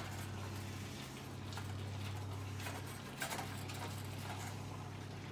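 A spatula scraping and tapping a skillet now and then while ground beef is stirred and broken up as it browns, over a steady low hum.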